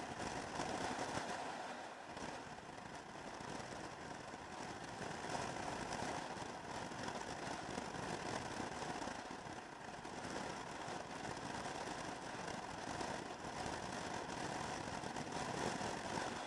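Maxi-scooter engine running steadily while riding along, mixed with even road and air rush.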